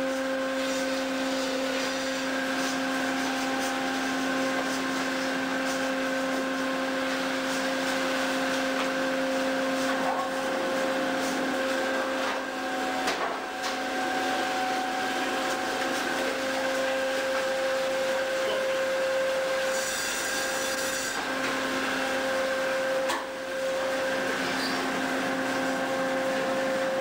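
Steady drone of fish-processing machinery on a factory ship's processing deck: a constant mechanical hum of several held tones over a noisy rush, with a few knocks.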